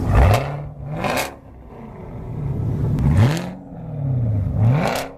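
A car engine revved four times in quick throttle blips, each pitch sweeping up sharply and then falling back.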